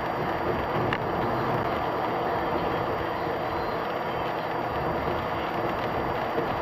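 Steady road and engine noise of a moving vehicle, with a brief click about a second in.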